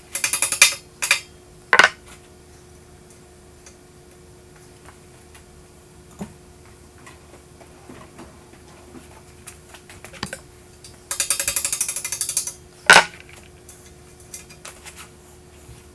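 Metal tools and bike parts being handled: two quick runs of rapid, evenly spaced metallic ticking, a few single clicks, and one sharp metal clank near the end.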